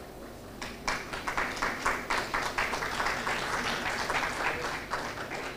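Audience applauding: the clapping starts about half a second in, builds quickly and thins out near the end.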